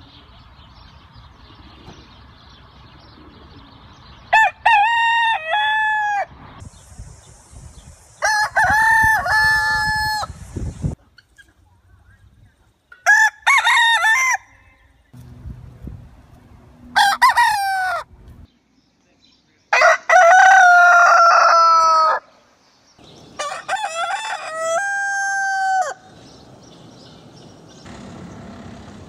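Roosters crowing: about six separate cock-a-doodle-doos from different birds, each one to three seconds long with short gaps between, the first starting about four seconds in after a quieter stretch.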